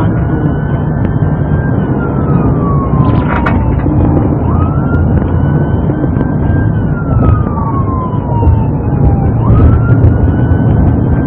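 Police car siren on wail: each cycle a quick rise, a short hold, then a long slow fall, heard about three times. Under it is heavy engine and road rumble from inside the pursuing cruiser at about 58 mph.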